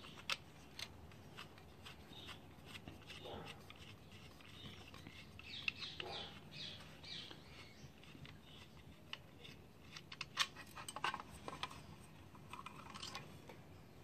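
Faint metallic clicks and scrapes of a screwdriver and screw against a ceiling fan light's metal housing as the fluorescent ballast is unscrewed and taken out, with a few sharper clicks about ten to eleven seconds in.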